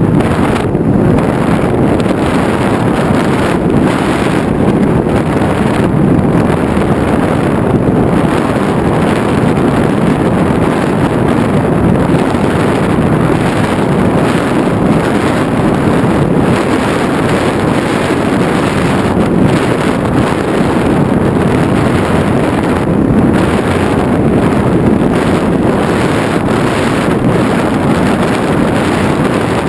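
Steady, loud wind rush buffeting the onboard microphone of an FPV model aircraft in flight.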